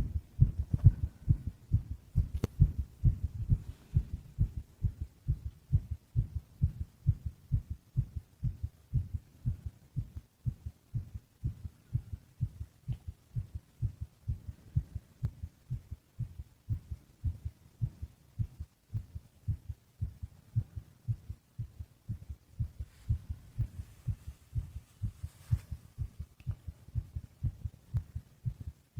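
Heartbeat of a sleeping man: a steady, even rhythm of low thumps.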